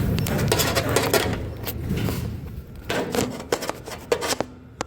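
Elevator cab travelling down its shaft, heard close to a floor vent: a noisy rush of air and running gear with many sharp clicks, rattles and scrapes, getting quieter near the end.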